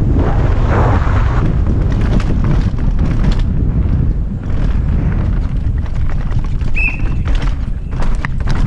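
Downhill mountain bike descending a rough dirt track over roots and rocks: wind buffets the microphone while the tyres rumble and the bike clatters with frequent sharp knocks and rattles. A brief high squeal comes about seven seconds in.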